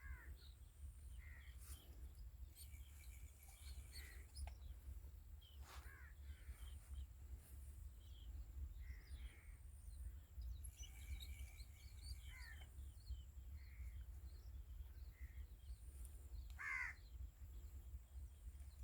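Quiet outdoor ambience: scattered bird calls, including a few harsh caws, over a low steady rumble.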